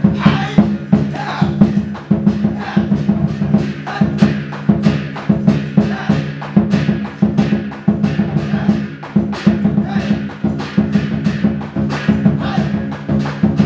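A large Chinese barrel drum and hand cymbals played live in a steady, driving beat of about three strokes a second, with the cymbals crashing over the drum.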